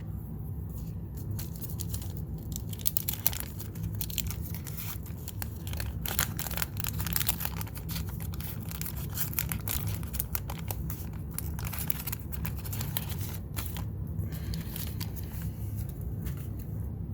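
Wax paper wrapper of a 1987 Garbage Pail Kids trading-card pack being torn open and crinkled, with dense crackling for most of the stretch that thins out in the last few seconds.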